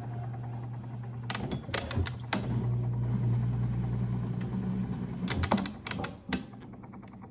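Dishwasher motor running with a steady low hum, with clicks and knocks from handling the machine. About six seconds in, the motor cuts off and a fast, even mechanical ticking follows.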